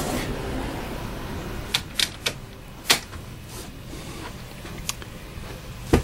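A handful of short sharp clicks and knocks over steady background noise: three in quick succession about two seconds in, another a second later, and the loudest just before the end.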